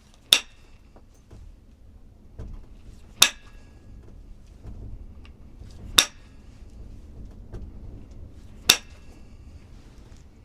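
Flintknapping: a hammer striking a stone core four times, evenly spaced about every three seconds, each a sharp clink with a brief ringing tone.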